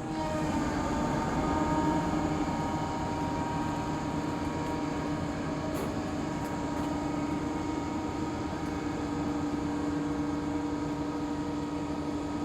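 XCMG 500-tonne crane's diesel engine running under steady load, with a constant drone and whine; it picks up at the start, peaks about two seconds in, then holds steady.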